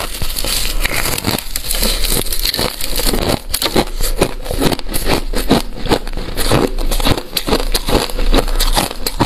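Freezer frost ('white ice') being bitten and chewed close to a clip-on microphone: a dense run of crisp crackling crunches.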